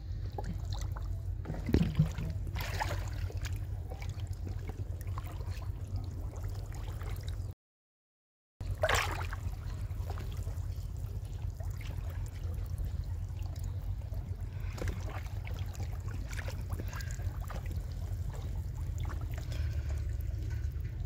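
Small splashes and trickling water in a shallow weedy pond, with louder splashes about two seconds and nine seconds in, over a steady low rumble. The sound drops out for about a second just before the second splash.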